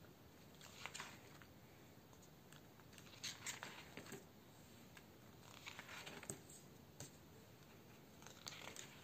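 Thick 300-gram pages of a wire-spiral-bound comic book being turned by hand: several brief, faint paper rustles and flicks as the pages swing over.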